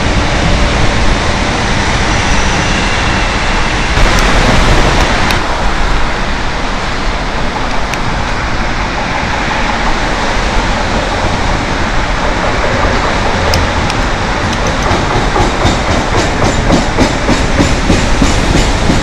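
CTA rapid transit trains: a 5000-series electric train running past the platform, then, after a change about four seconds in, another train rolling into the station. Near the end the wheels click evenly over the rail joints as it comes in.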